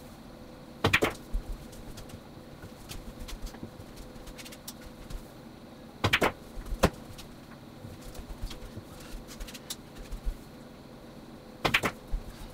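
Pool stop shots: each time a cue tip strikes the cue ball, followed a split second later by a sharp clack of the cue ball into the object ball. Three shots, about five seconds apart.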